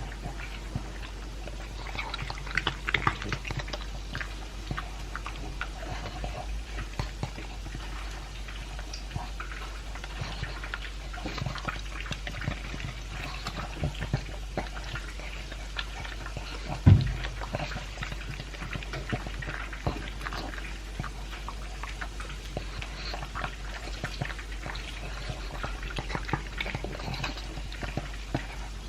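Pug eating dry kibble mixed with beef chunks: close, irregular crunching and wet smacking, chewing and licking. A single loud thump comes about 17 seconds in.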